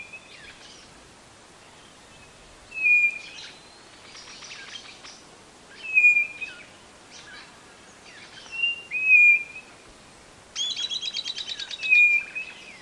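White-bellied nothura (codorna-do-nordeste) calling: a short, loud whistle about every three seconds, doubled once near the middle. Shortly before the last whistle comes a fast run of about a dozen rattling notes.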